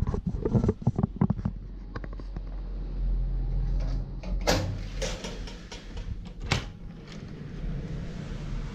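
A door latch and handle being worked as the door to the balcony is unlocked and opened: a run of light clicks and knocks, then a few louder, sharp metallic clicks in the second half.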